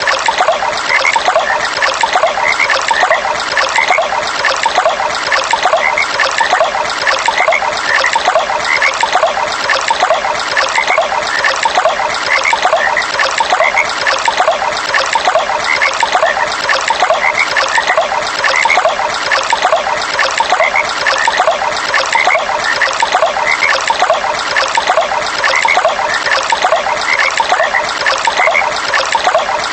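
Frogs calling in a steady, evenly repeating rhythm over water trickling and flowing.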